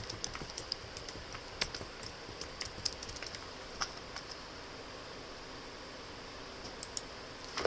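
Typing on a computer keyboard: faint, irregular key clicks, with a pause of a couple of seconds in the middle.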